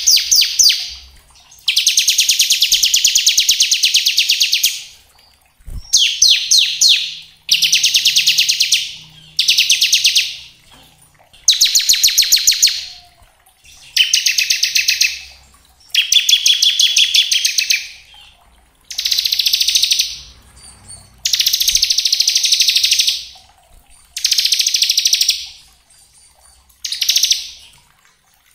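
Bar-winged prinia (ciblek) singing its 'ngebren' song: about eleven high-pitched, very fast buzzy trills of one to three seconds each, separated by short pauses.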